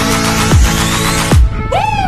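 Electronic dance music with a heavy bass-drum beat. Near the end the drums drop out briefly under a swooping synth note that rises and falls.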